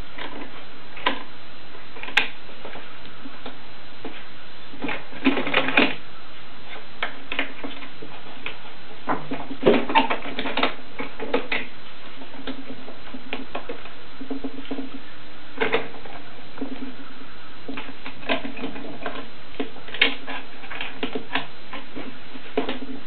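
Scattered clicks and light knocks of metal bar clamps and wooden window-frame pieces being handled and adjusted during a glue-up, a few in quick clusters, over a steady background hum.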